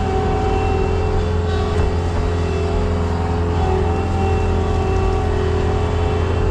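Farm tractor engine running steadily, a low drone with a steady higher whine over it.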